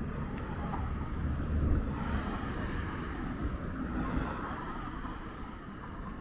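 Street traffic noise: a vehicle passing, its rumble swelling in the middle and fading toward the end.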